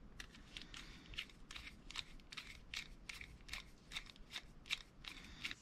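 Small screwdriver driving the little screws back into a baitcasting reel's frame: a run of quick, light scraping clicks, about five a second.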